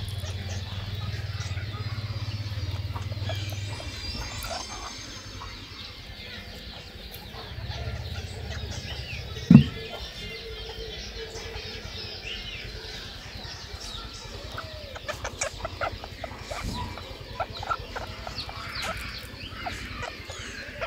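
Chickens clucking in the background, with rustling and low handling noise as a hand digs through a fur-lined rabbit nest. There is a single sharp knock about ten seconds in, and a run of sharp clicks later.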